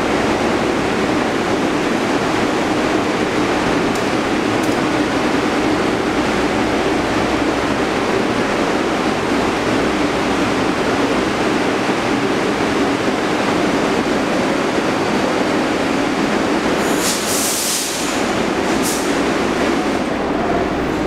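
Bombardier R62A subway train standing in the station with its equipment running in a loud, steady drone. A short burst of hissing air comes about 17 seconds in.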